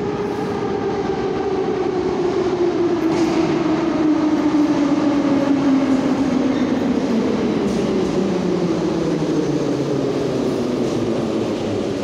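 Ezh3 metro train pulling into an underground station. Its traction motors whine and slide steadily down in pitch as it slows, over the rumble of the wheels. The sound grows louder as the cars come alongside.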